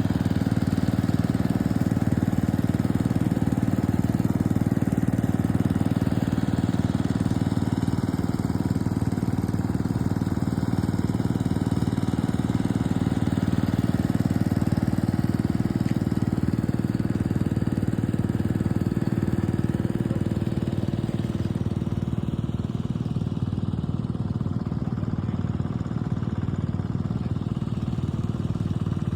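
Engine-driven water pump running steadily at constant speed while pumping water into a rice paddy, growing slightly quieter in the last third.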